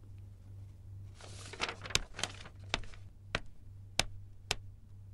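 Footsteps on a hard floor, sharp evenly spaced steps about two a second, starting about two seconds in after a brief rustle, over a steady low hum.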